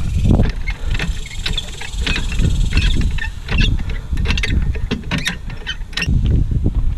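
Irregular metal clicks and knocks from tool work at a car's wheel, such as jacking the car up or spinning lug nuts, over a steady low rumble.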